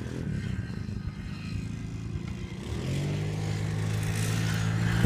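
Dirt bike engine running as the bike comes closer, its note rising a little and getting steadier and louder from about three seconds in.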